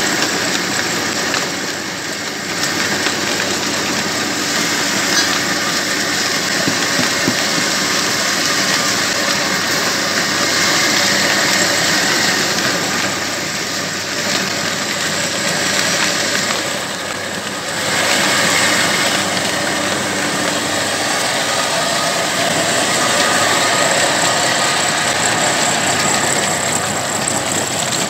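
Old 25 HP stationary diesel engine running steadily, mixed with the noise of the belt-driven machinery it powers. The sound drops a little twice, about two seconds in and again around seventeen seconds.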